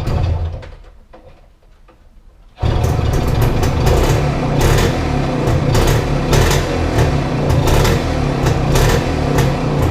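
Small engine running: a loud burst that dies away over the first second, then about two and a half seconds in the engine sound cuts in abruptly and runs steadily, with frequent sharp crackles over a low drone.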